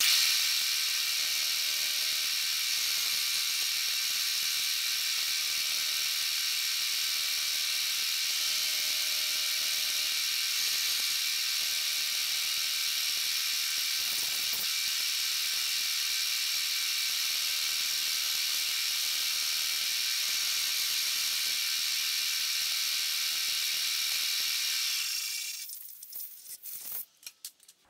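End mill cutting a slot through pre-drilled 303 stainless steel, an interrupted cut through the webs between the holes, heard as a steady high-pitched whir because the cutting is sped up. It stops about 25 seconds in, followed by a few faint clicks.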